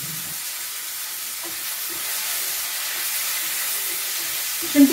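Champignon mushrooms sizzling steadily as they fry in butter in a skillet.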